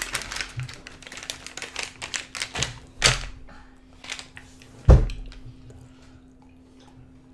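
Handling noises at a wooden tabletop: a run of small clicks and taps, with a few louder knocks about two and a half, three and five seconds in, then only faint rustling.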